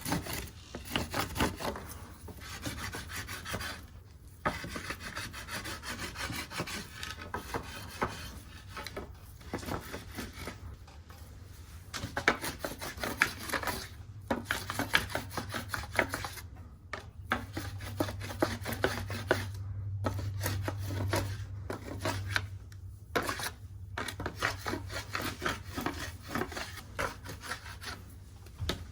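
Quick, repeated rubbing and scraping strokes against a shed deer antler, part of restoring its natural colour.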